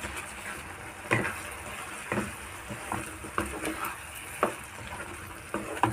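Wooden spatula stirring thick tomato chutney in a non-stick kadai, knocking and scraping against the pan at irregular moments, over a steady sizzle of the sauce cooking.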